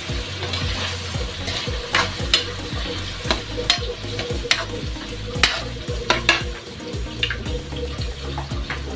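Metal spatula scraping and clacking irregularly against a steel wok as chopped chicken, chicken liver and hotdog sauté and sizzle, with fish sauce just poured in. A low steady hum runs underneath.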